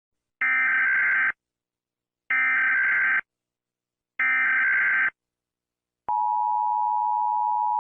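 Emergency Alert System SAME header: three roughly one-second bursts of buzzy digital data tones, evenly spaced, followed about a second later by the steady two-tone EAS attention signal.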